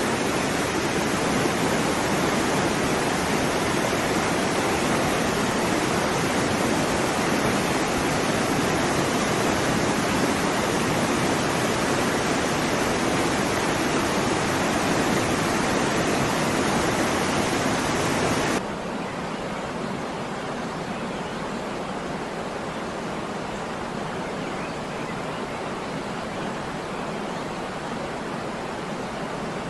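Waterfall rushing, a steady dense roar of falling water. About two-thirds of the way in it cuts suddenly to a quieter, thinner rush of water with less low rumble.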